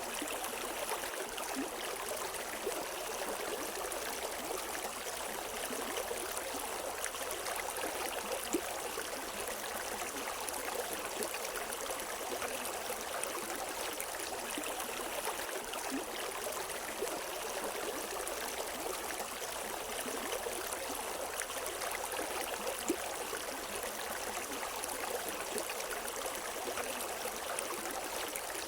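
River water running steadily over rocks, an even rushing and babbling with no birdsong.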